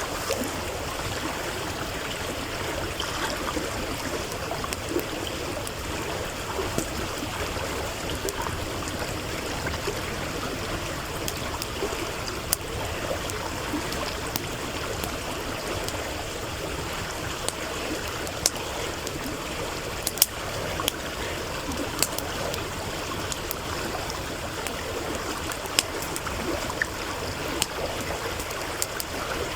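A stream running steadily, with a wood campfire crackling over it: scattered sharp pops of burning firewood, a few louder ones standing out above the water.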